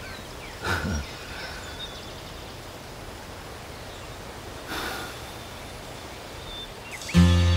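Outdoor ambience with faint bird chirps and two short animal snorts, about a second in and again near five seconds. Just before the end a country song with fiddle starts loudly.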